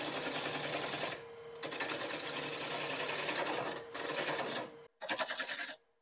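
Wood lathe spinning a small juniper piece while a turning tool cuts at its tailstock end, a rapid rattling chatter with brief pauses. Under it runs a steady squeal from the Laguna live center, whose bearing is worn out, running hot and screeching. The sound breaks off sharply about five seconds in, then the chatter resumes without the squeal.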